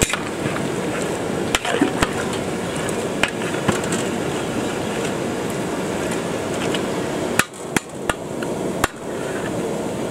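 Long metal ladle knocking and clanking against the rim of a large aluminium cooking pot while stirring a big batch of mutton curry, about nine sharp knocks spread unevenly and bunched near the end, over a steady rushing background.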